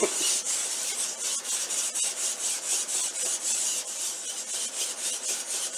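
Quadruped robot dog moving on its legs: a steady rasping whir from its leg servos, broken by many quick ticks.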